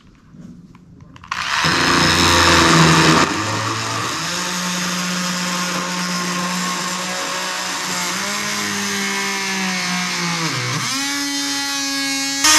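Handheld power tool cutting a guide kerf into a wooden boat-hull plank. The motor starts about a second in and runs steadily, and its pitch sags and recovers twice as the blade bears into the wood.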